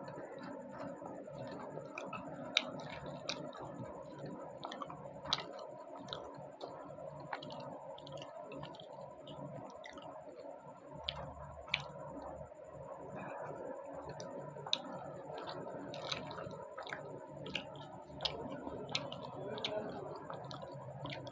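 A person eating luchi and cholar dal: chewing and wet mouth sounds, with many short sharp clicks scattered irregularly over a steady background hiss.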